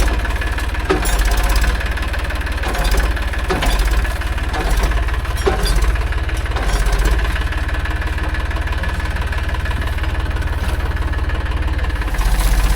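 Tractor diesel engine running steadily, with short knocks or clanks scattered through the first half. The engine gets louder near the end.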